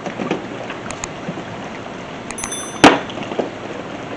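Toolboxes being handled: a few light clicks, then one sharp knock about three seconds in, over a steady background hiss.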